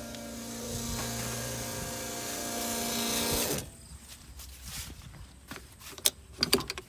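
Electric fuel transfer pump humming while diesel rushes through the nozzle into an equipment tank, then shutting off abruptly about halfway through. A few sharp clicks and knocks follow near the end.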